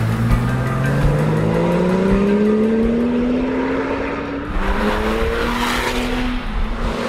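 Porsche 911 GT2's twin-turbo flat-six accelerating hard: its note climbs steadily for about four seconds, breaks at a gear change, and climbs again before another shift near the end.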